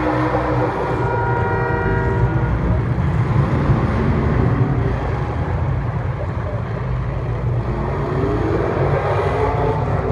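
Racing engines running during a race, changing pitch as they speed up and slow down, with one swelling up and fading about eight seconds in.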